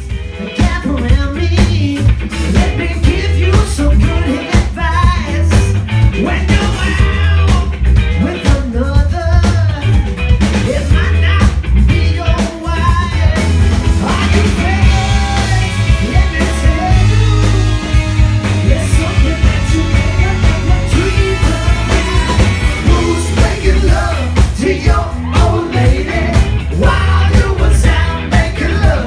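Live band playing upbeat rock with electric guitar, drums, electric keyboard and a horn section of saxophone and trumpet, with a man singing lead. There is a steady heavy bass and drum beat throughout, and held horn or keyboard notes through the middle.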